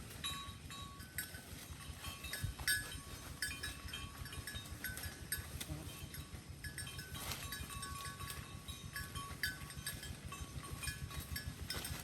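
Cattle chewing hay: repeated crunching and munching, with short high tones now and then.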